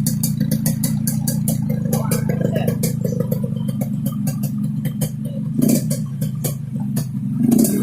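Yamaha RX-King two-stroke single-cylinder motorcycle engine running steadily through a 'ngorok' (snoring) exhaust, with a scatter of sharp clicks over it.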